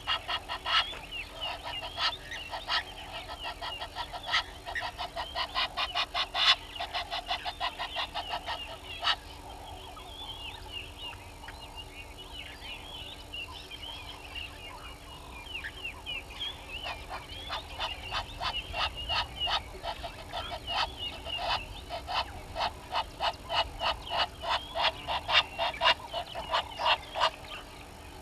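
Helmeted guineafowl cackling: long runs of harsh, rapidly repeated call notes, several a second, in two bouts, with softer chirping birdsong between them.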